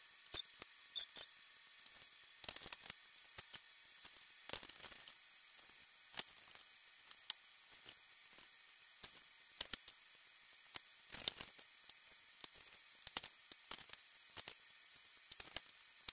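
Refrigerated biscuit dough being cut into quarters and the pieces dropped into a pan: faint, irregular small clicks, snips and soft squishes, several a second at times and then pausing.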